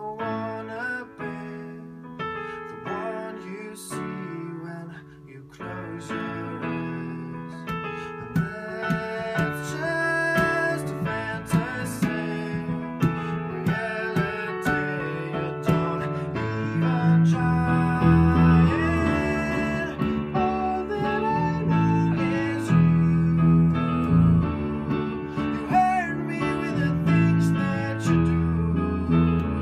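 Live pop song played unplugged: a man singing over a digital piano, with an electric bass guitar. The bass line gets much heavier about halfway through.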